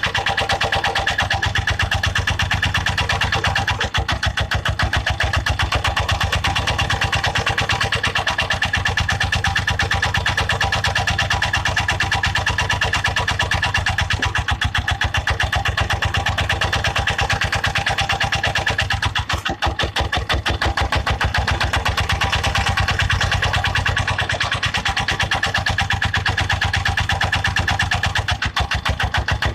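Small ride-on tractor engine running steadily with a rapid, even firing beat while it powers a backhoe attachment.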